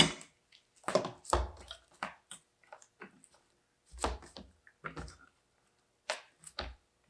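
Steel tractor top link handled and laid down on a workbench: a sharp knock at the start, then several scattered clunks and clicks.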